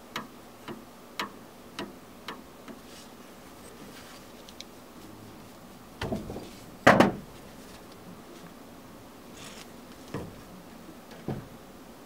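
Light clicks and knocks of small hard parts being handled, about two a second at first, with a louder clatter about seven seconds in and two more clicks near the end.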